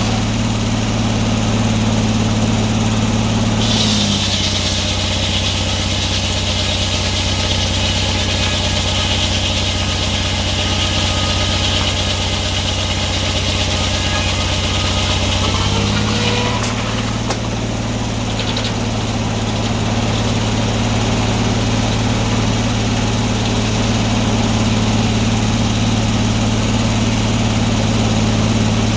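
Antique sawmill's engine running steadily; about four seconds in the saw blade goes into the log with a loud high hiss and the engine pitch drops under the load of the cut. About sixteen seconds in the cut ends, the hiss stops and the engine picks back up as the blade runs free.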